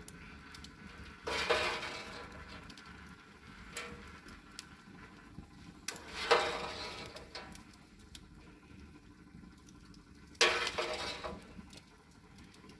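A metal spoon scraping and clinking in the drip pan under a spit-roasting leg of lamb, three times about four to five seconds apart, as the cooking juices are scooped up and poured over the meat to baste it.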